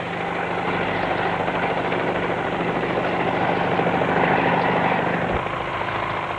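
Helicopter's rotor and engine running steadily, a rushing noise with a low steady drone; it grows louder toward the middle and eases off again near the end.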